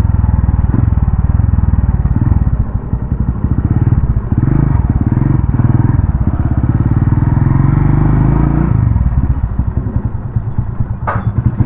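Small single-cylinder motorcycle engine running under way, its pitch rising and falling with the throttle, then dropping to a lower, uneven putter as the bike slows. A sharp click comes near the end.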